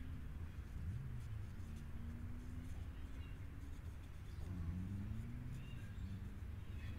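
Outdoor ambience: a steady low rumble with a few short, faint bird chirps scattered through it.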